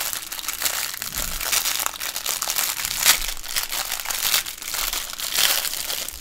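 Plastic toy packaging being handled and unwrapped, crinkling and crackling continuously with many sharp crackles.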